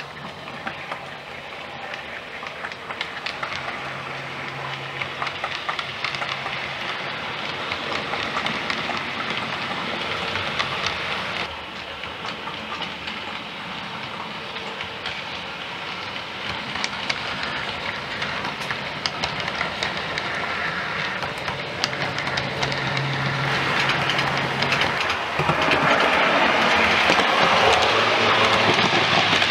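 H0-scale model passenger train rolling along the track, its wheels making a rapid fine clicking over the rail joints, with a low steady hum at times. The sound changes abruptly about eleven seconds in and grows louder toward the end.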